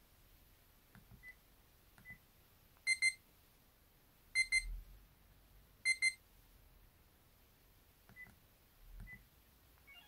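The NTT docomo F-06D Girls' phone's built-in "Alarm clock" ringtone from its speaker: three double electronic beeps, beep-beep, about a second and a half apart. Soft key clicks and short key beeps sound just before and after it.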